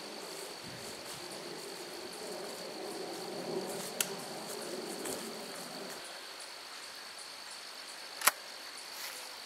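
Insects droning: a steady high-pitched hum under a faint low background that stops about six seconds in. Two sharp clicks cut through, one about four seconds in and a louder one a little after eight seconds.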